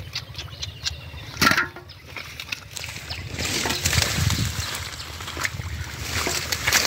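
Hands rustling and tearing through water hyacinth stems and sloshing in shallow muddy water, with many small crackles and one sharp slap about one and a half seconds in.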